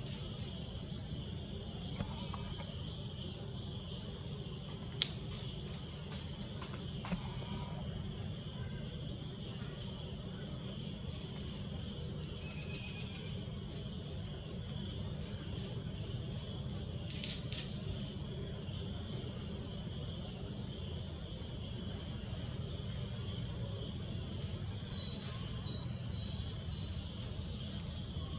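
Steady chorus of insects in a high, pulsing trill over a low background rumble, with one sharp click about five seconds in.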